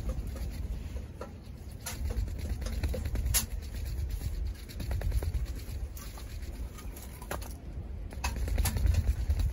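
Wind buffeting the tent and the microphone, a low steady rumble, with scattered sharp clicks and scratches.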